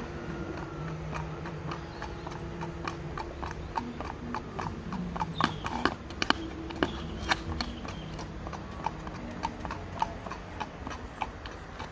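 Shod hooves of a ridden mule clip-clopping on asphalt in a quick, even beat of about four strikes a second, loudest in the middle of the stretch. A low steady hum runs underneath.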